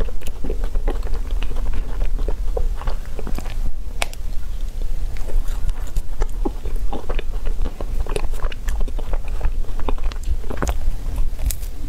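Close-miked eating sounds of chocolate ice cream in a wafer cone: irregular wet mouth clicks and chewing, with a few sharper crisp bites of the cone near the end.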